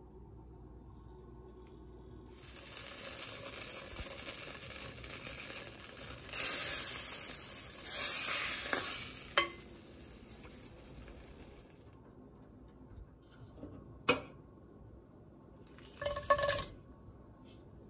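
Margarine spread sizzling as it melts in a hot stainless steel frying pan while a wooden spoon stirs it. The sizzle is loudest a little after the middle and cuts off suddenly. Near the end come a few sharp knocks as raw shell-on shrimp are tipped from a plastic colander into the pan.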